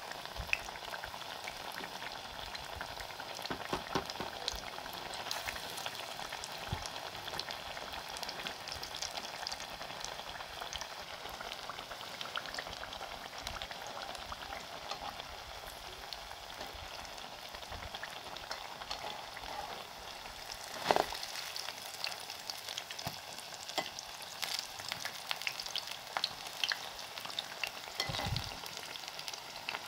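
Besan-battered potato slices deep-frying in hot oil in a steel pan: a steady sizzle full of small crackles and pops. One louder knock about two-thirds of the way through.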